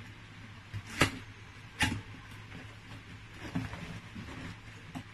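Sealed cardboard box being picked open by hand, with fingernails scratching and catching on the cardboard flap. Two sharp snaps about one and two seconds in, and a softer one around three and a half seconds.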